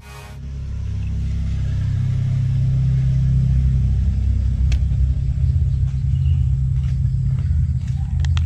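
Steady low rumble, with a few faint clicks of a plastic spray-bottle cap being handled, about halfway through and near the end.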